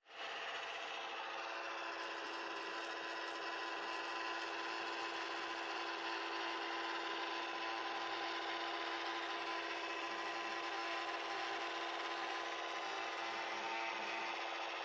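Small electric motor and fan taken from an old hair dryer, fitted in a homemade vacuum cleaner, running steadily: a constant hum over a rush of air.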